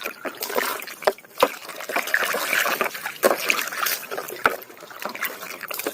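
Water sloshing and trickling as a muddy toy is washed, with a few light knocks scattered through it.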